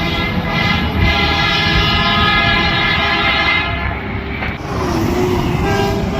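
Garbage truck horn sounding a long blast of several seconds, then a shorter blast near the end, over the low noise of the truck's engine running.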